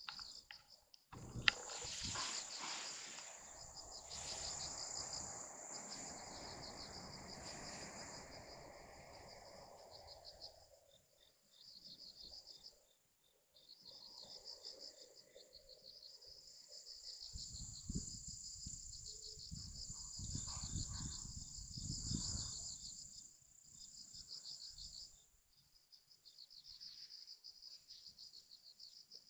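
Insects trilling in a high, fast-pulsing chorus that breaks off and starts again every few seconds. A soft rustling noise runs through the first third, and low rumbles come past the middle.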